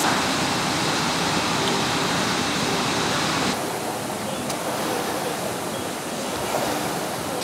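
A steady rushing noise that eases slightly about three and a half seconds in.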